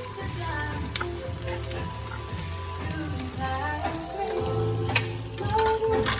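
Beef and pork bacon strips sizzling and frying in a hot pan, with a few sharp clicks.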